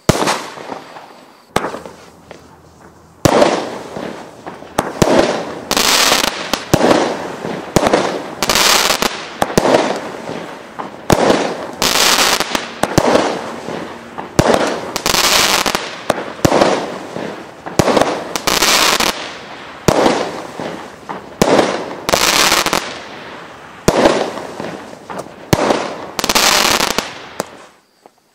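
WATT 8-Ball firework cake firing its shots in quick succession: one sharp bang a second or so in, then from about three seconds in a long run of loud bangs, one to two a second, each with an echoing tail. The barrage stops just before the end.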